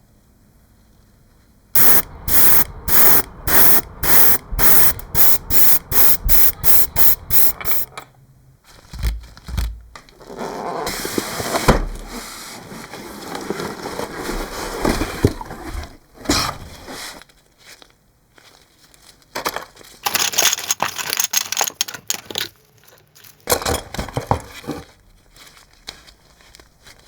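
A rapid run of short hissing spray bursts, about two a second and coming faster, then longer spells of spraying hiss with some scraping.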